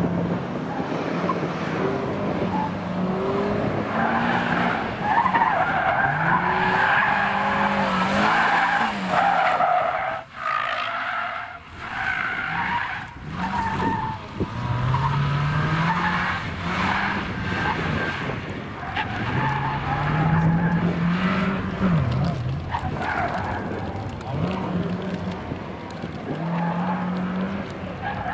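A car's engine revving up and dropping back again and again as it is driven hard through tight turns, with tyres squealing in the corners.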